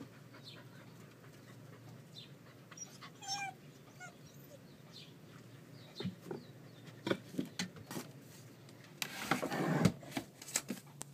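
Husky-type dog sounds: a brief high whine about three seconds in, then scattered clicks and taps as it moves about. A loud rustling burst near the end as the camera is handled.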